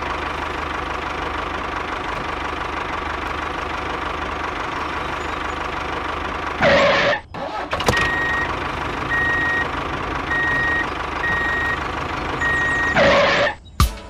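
Tractor engine idling steadily, with a reversing beeper sounding five times about a second apart in the second half. Two short loud bursts break in, about seven seconds in and again near the end.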